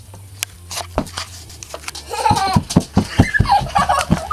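A toddler squealing in high, wavering cries, starting about two seconds in, over quick thumps of running steps on a wooden floor.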